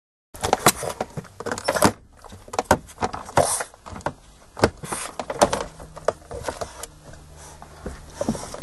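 Irregular knocks, taps and rustling from a small dog playing with a ball in a car footwell, the ball and the dog bumping against the hard plastic trim and scuffing the blanket.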